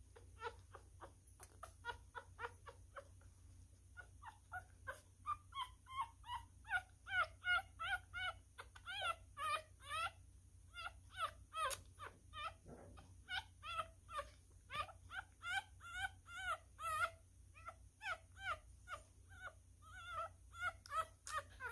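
Newborn miniature schnauzer puppy squeaking over and over while being syringe-fed: short, high squeaks that rise and fall in pitch, two or three a second, with a brief pause about three seconds in.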